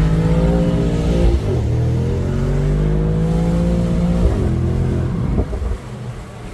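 Mercedes-AMG SL55's V8 exhaust pulling under acceleration. Its pitch climbs slowly and drops sharply twice, about a second in and about four seconds in, as it shifts up. The sound gets quieter near the end.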